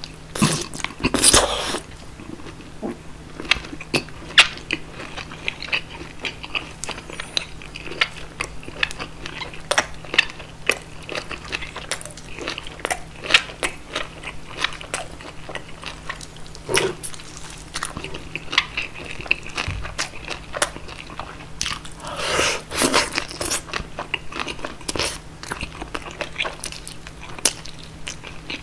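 A person eating roast pork knuckle (schweinshaxe) close to the microphone: biting and chewing, with many sharp crunches and clicks.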